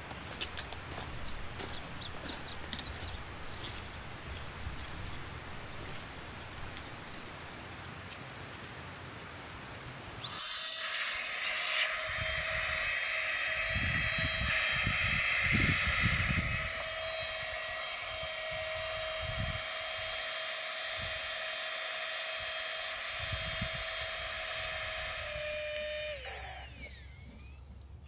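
Small battery-powered air pump inflating a packraft. It starts with a steady whine about ten seconds in and winds down with a falling pitch near the end. Before it, a few birds chirp over soft outdoor background noise.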